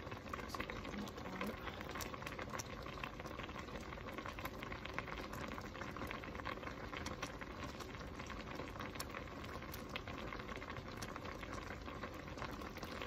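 Chicken broth at a rolling boil in a large stainless steel stockpot with dumplings cooking in it: a steady bubbling full of small pops.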